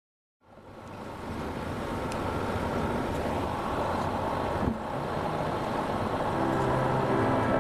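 Steady road-vehicle noise fading in and holding, with music carrying brass coming in over it near the end.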